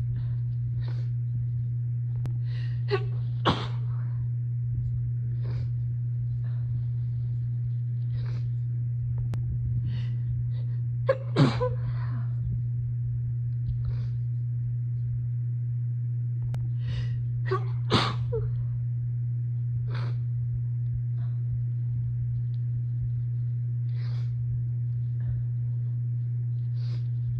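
A series of human sneezes, set off by dust from packing boxes, spread through the clip and separated by quieter breaths. The loudest come about 3 s in, about 11 s in and about 18 s in. A steady low hum runs underneath.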